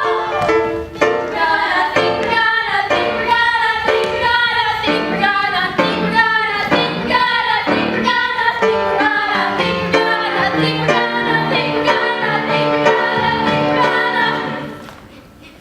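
A group of voices singing a song with instrumental accompaniment; the music fades out near the end.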